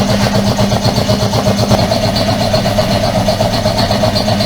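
Air compressor running steadily, with a rapid, even pulsing.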